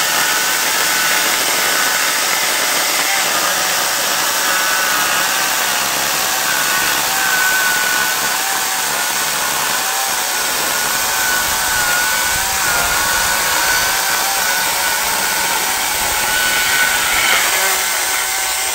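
Parkside PKSA 40-Li A1 cordless electric chainsaw, running on two 2 Ah batteries, cutting steadily through a thick knotty log, its motor whine wavering in pitch as it labours under load. The saw has much less power on these small batteries.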